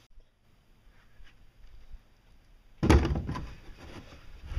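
A stack of plastic buckets set down on a fiberglass pontoon gives one sudden, loud thunk about three seconds in, followed by a few lighter knocks as the buckets are handled.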